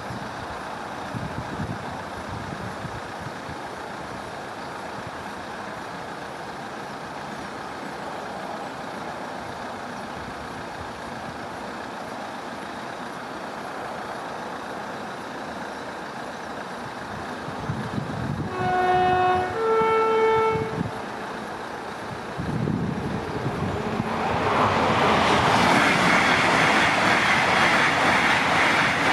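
LNER Azuma high-speed train sounding its two-tone horn about two-thirds of the way through, a lower note then a higher one. The train then passes the crossing at speed, its wheel and air noise rising into a loud rush that holds to the end.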